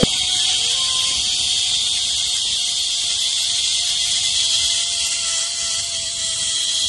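Zipline trolley pulleys running fast along a steel cable: a steady, high-pitched whirring hiss with a faint low hum beneath, as the riders glide down the line.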